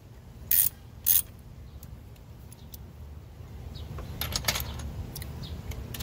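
A 3/8-inch ratchet with a 10 mm socket clicking as it loosens the ignition-coil hold-down nuts: two sharp clicks about half a second apart near the start, then a cluster of smaller clicks about four seconds in.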